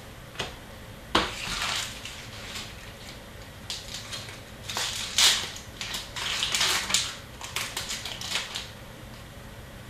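A pack of hockey trading cards being torn open and handled: paper-and-wrapper rustling with sharp crinkles and clicks, a short rustle about a second in, then a denser run of crinkles and clicks from about four to eight and a half seconds in.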